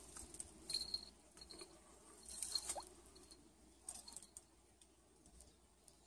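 Faint, scattered rustling and crackling of a Jindo puppy stepping and pawing through weeds, dry grass and twigs, with one short faint squeak about halfway through.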